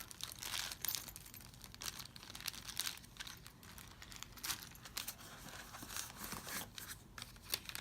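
Plastic packaging crinkling and rustling in irregular bursts as accessories are taken out of their bags.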